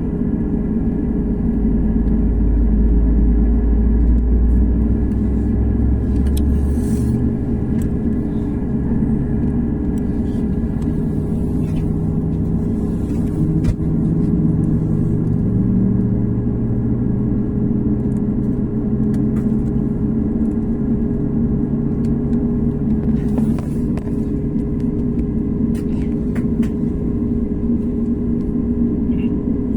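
Airliner engines heard from inside the passenger cabin: a steady rumble with a constant hum, heaviest and deepest for the first several seconds.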